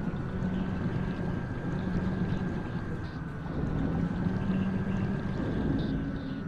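Steady low motor hum with a thin, slightly wavering high whine above it, over a rushing wash of noise. It is the kind of sound presented as the strange noise recorded underwater by a diving robot.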